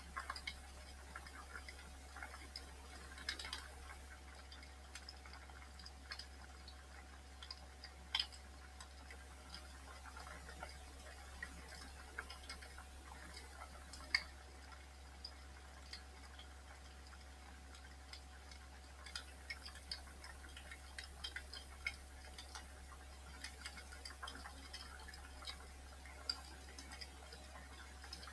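Wood fire crackling in a fireplace: irregular small pops and snaps, with two sharper pops about 8 and 14 seconds in, over a steady low hum.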